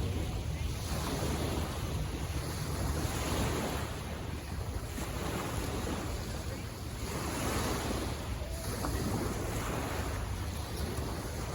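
Waves washing onto the shore, swelling and easing every couple of seconds, with wind rumbling on the microphone.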